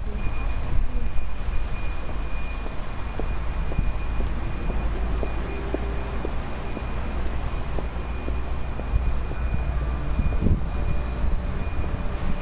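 Steady low rumble of outdoor pedestrian-square ambience, with wind buffeting the microphone, and a faint steady high whine throughout.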